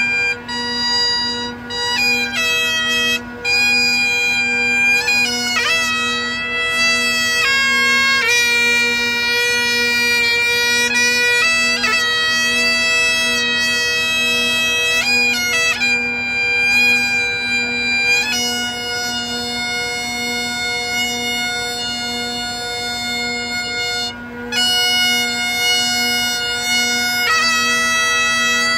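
Great Highland bagpipes playing a slow melody of long-held chanter notes over the unbroken drone.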